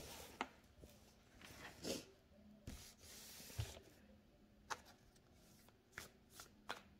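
Faint rustling and scattered light taps of tarot cards being handled and shuffled.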